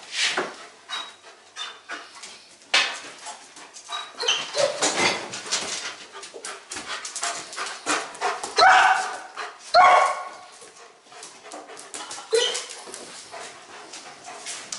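A shepherd dog barking and whining repeatedly, eager to go out to training, with its two loudest barks a little past the middle.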